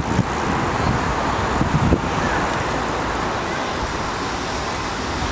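Steady street ambience as a stream of cyclists rides past: a continuous hum of rolling bicycles and distant traffic, with faint voices.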